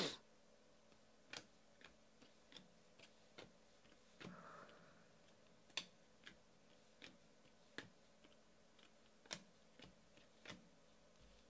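Faint, irregular clicks of glossy trading cards being flipped one at a time through a handheld stack, about one to two a second, with a soft brief rustle of the cards sliding a little after four seconds in.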